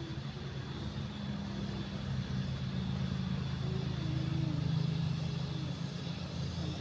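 Road vehicles, a van and cars, driving past with engine and tyre noise. The sound swells to its loudest about five seconds in as the van passes close by.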